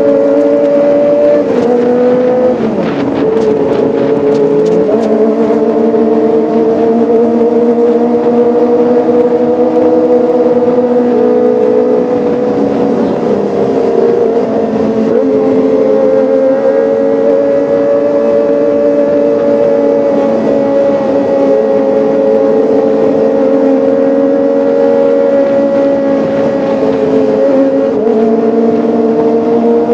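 Kawasaki ZX-25R 249 cc inline-four engine running at high revs, a steady high-pitched note. The pitch drops sharply and climbs back about three seconds in, with a few sharp crackles as the revs fall, and dips again around thirteen seconds in.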